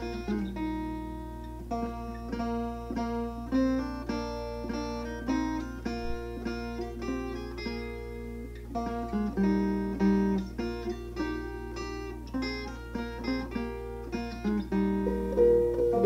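Background music: an acoustic guitar playing a run of short plucked notes.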